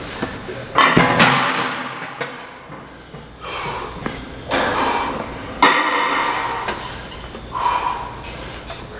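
A heavy strongman carrying implement is set down on the gym floor with a loud thud about a second in. Softer knocks follow, with another sharp knock a little past the middle.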